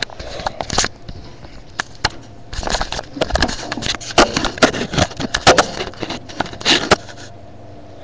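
Handling noise from the webcam being moved around: rustling against fabric with a quick series of sharp knocks and scrapes, which stops about seven seconds in.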